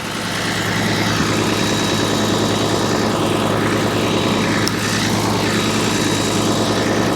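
Steady drone of idling engines close by, the International 1486 tractor's diesel among them, with a constant low hum.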